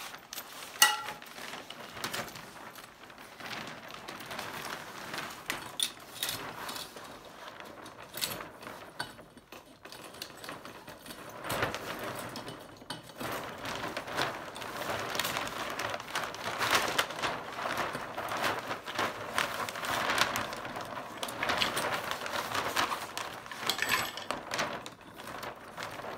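Sail cloth rustling and crinkling as it is worked down onto a metal mast tube, with scattered clicks and clinks of the sail's fittings against the mast. One sharp click about a second in; the handling gets louder about halfway through.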